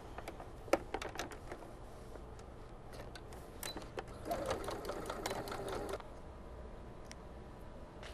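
Singer electric sewing machine running for about two seconds as it stitches a seam, stopping abruptly, after a few light clicks and knocks.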